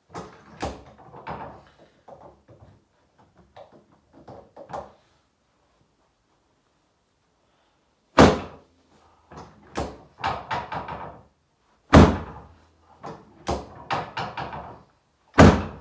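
A run of light knocks and taps, then three loud thuds about four seconds apart, each followed by a quick cluster of lighter knocks.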